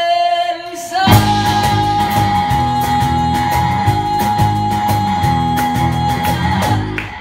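Live band: a woman singing to electric guitar and upright double bass. About a second in, she holds one long high note over the band's steady beat for about five seconds. The note drops away near the end.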